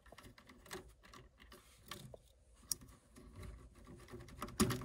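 Faint clicking and rustling of wires being handled as a wire's spade connector is worked off a terminal on a furnace control board, with a sharper click about two-thirds of the way through and another near the end.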